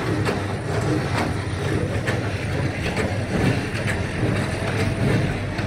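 Motor of a clay-mixing machine running steadily, a dense low rumble.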